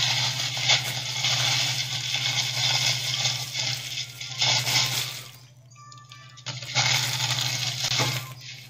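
Plastic wrapping crinkling loudly as a toy package is unwrapped by hand. It goes quiet for a second or so past the middle, then crinkles again briefly, over background music.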